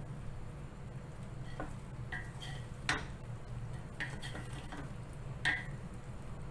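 Two wooden spatulas stirring and tossing noodles in a large aluminium pot, the wood knocking and scraping against the metal several times, loudest about three and five and a half seconds in. A low steady hum lies underneath.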